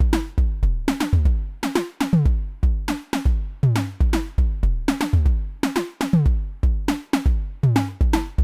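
Two Slim MPS eurorack analogue percussion synth modules, a version of Thomas Henry's Mega Percussive Synth, playing a looping drum-machine pattern. Deep kick-like thumps alternate with tom-like pitched hits whose pitch drops quickly after each strike.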